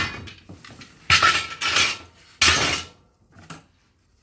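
Loose metal parts clattering as they are handled, in three or four short bursts with a brief ring in the first.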